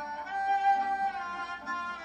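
Background instrumental music: a melody of held notes over a lower accompaniment.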